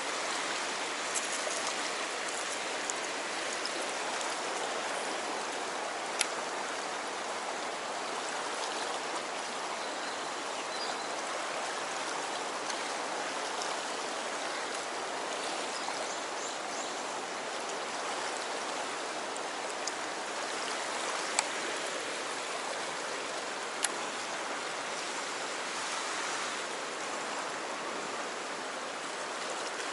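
Fast-flowing river current rushing and swirling steadily against a concrete bank, with a few brief sharp clicks over it.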